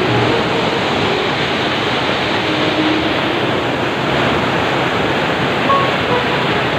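Rushing water: a steady, loud roar of a mountain stream or small waterfall pouring over rock.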